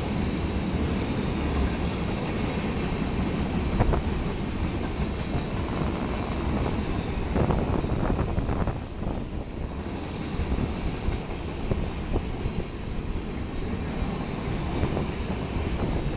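Freight train of tank cars rolling past at close range: steady rumble of steel wheels on rail, with scattered clicks and clanks as the wheels pass over rail joints.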